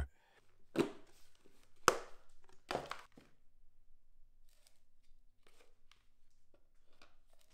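Quiet workshop handling sounds: a few knocks in the first three seconds, the sharpest about two seconds in, then faint clicks and taps as a black plastic bucket is lifted and handled beside a tin pot of brushes.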